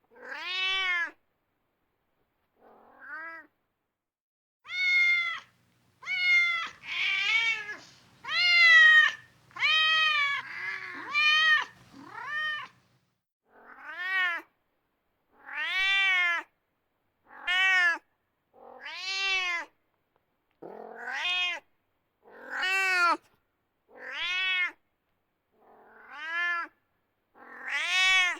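Domestic cat meowing over and over: about eighteen separate meows, one every second or two, each rising and then falling in pitch. The calls bunch closer together in the first half.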